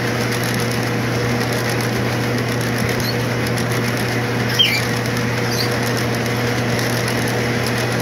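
Lionel O-gauge model freight cars rolling past on track: a steady rolling rumble with a steady electrical hum beneath. A few brief high chirps come through, one with a small click about halfway.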